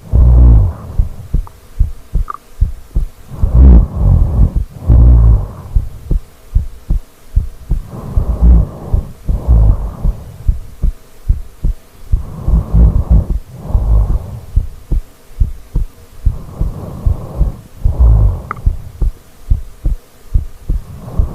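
A person snoring loudly and steadily. Each breath gives two low, fluttering snores close together, one on the way in and one on the way out, repeating about every four seconds.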